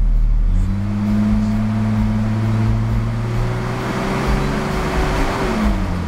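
Jeep Cherokee's 4.0-litre inline-six engine, heard from inside the cabin, revved up about half a second in and held at a higher, steady speed, then dropping back toward idle near the end.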